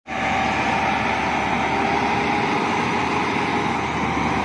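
Volvo FMX 8x4 dump truck's diesel engine idling steadily, with a low rumble and a faint steady whine over it.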